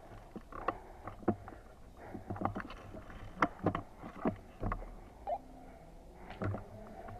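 A series of irregular sharp clicks, snaps and knocks, about a dozen, over a faint steady background.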